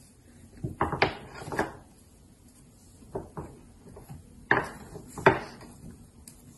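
Rolling pin knocking and rolling on a stone board while fondant is rolled out thin: a handful of light, scattered knocks and clicks, the loudest about a second in and twice more past the middle.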